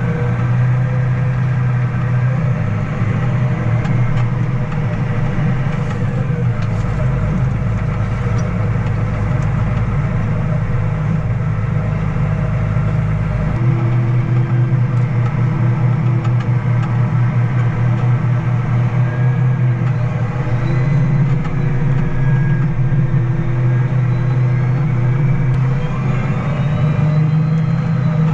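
A vehicle engine running steadily under load, with a sudden change in its tone about halfway through.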